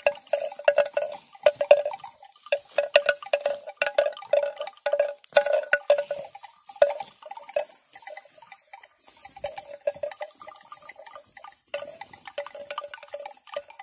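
A single-pitched bell clanking in quick, irregular clusters, like a neck bell on a grazing water buffalo jangling as it moves its head. The strikes are loudest in the first half, pause briefly about seven seconds in, then come softer and pick up again near the end.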